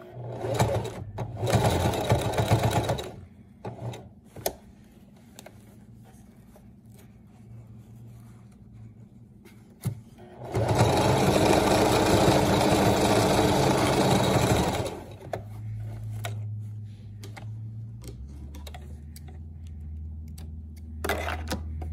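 Electric sewing machine stitching black binding onto stretch fabric, running in several short bursts at first, then in one longer continuous run of about four seconds in the middle.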